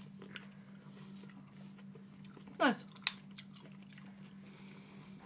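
Quiet eating sounds at the table: chewing and small mouth clicks from people eating cherries, over a steady low hum. A brief falling vocal sound comes about two and a half seconds in.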